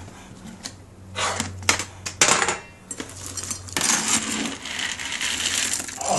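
Dry dog kibble clinking and rattling against a bowl as it is scooped and poured: a few scattered clinks, then a longer, denser rattle from about four seconds in.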